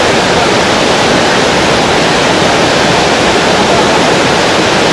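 Whitewater river rapids rushing: a loud, steady wash of churning water.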